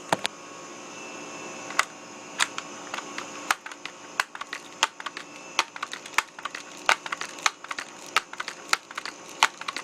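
Handling noise: a long run of irregular sharp clicks and light knocks as things are moved and set up by hand, over a faint steady hiss.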